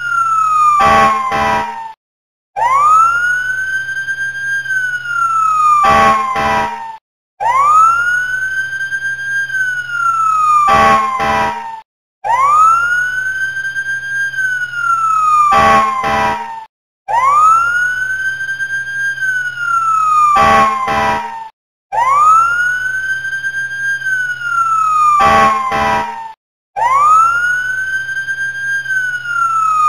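Looped siren sound effect. Each cycle is a wail that rises quickly, holds, then slides down, followed by a few short sharp blasts and a brief break, repeating about every five seconds.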